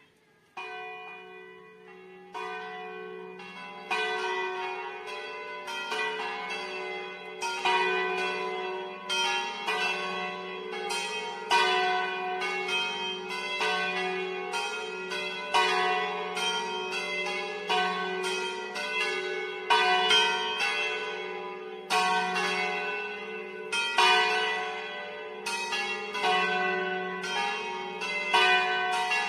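Four swinging church bells rung 'a distesa': one bell starts about half a second in, the others join over the next few seconds, and they then keep striking in a continuous overlapping peal, each stroke ringing on.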